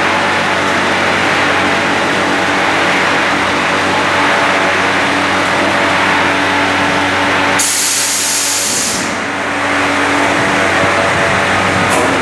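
Machinery of a snack-chip frying line running with a loud, steady mechanical hum and noise. About two-thirds of the way through, a sharp high hiss lasts a second or so.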